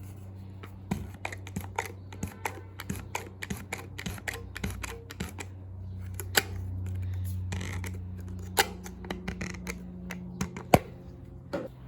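Foam-filled slime being squeezed and poked by hand, giving a string of sharp clicks and pops, several a second and irregular, with a few louder pops. A steady low hum lies underneath.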